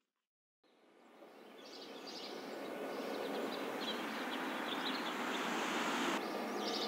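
Outdoor spring ambience fading in after about a second of silence: a steady background hiss with small birds chirping and twittering over it.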